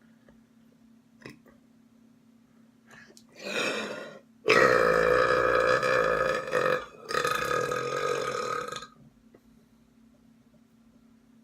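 A person burping: a short burp, then about half a second later a long, loud belch of about four seconds that breaks off briefly partway through before going on.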